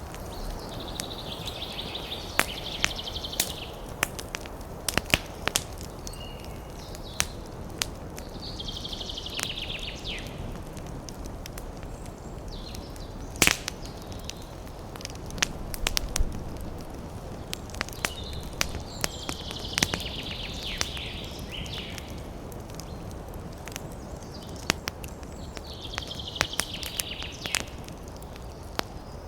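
Campfire burning over a steady low rush, with frequent sharp crackles and pops of burning wood. A bird sings a short high chirping phrase four times, roughly every six to eight seconds.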